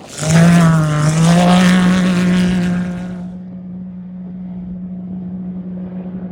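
Off-road race vehicle engine revving hard as it comes close, its pitch dipping and climbing, with a loud rush of noise over it. About three seconds in the rush stops and the engine carries on as a steady drone.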